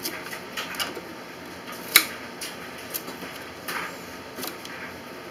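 Small kitchen knife cutting apple wedges in half on a ceramic plate: a string of irregular clicks and taps as the blade goes through the apple and meets the plate, the sharpest knock about two seconds in.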